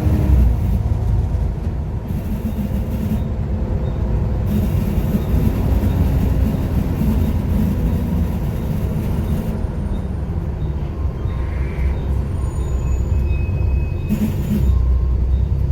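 Volvo B7TL double-decker bus running, a loud steady low rumble with a faint whine that slowly falls in pitch about halfway through.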